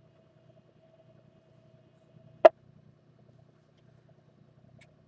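Quiet amateur radio channel between transmissions: a faint steady tone and low hum from the receiver, broken by one sharp click about halfway through.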